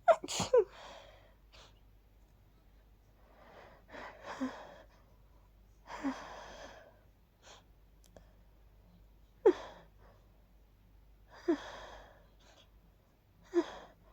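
A person sneezing in a fit from pollen allergy: two sneezes in quick succession at the start, breathy sighs around four and six seconds in, then three more sneezes about two seconds apart in the second half.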